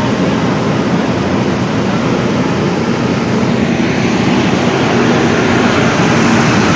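Loud, steady mechanical rumble with a hiss, like a large engine running.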